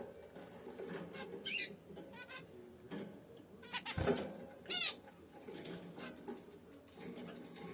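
Zebra finches calling: a few short high chirps, then a louder call falling in pitch about four and a half seconds in, with a few soft clicks before it.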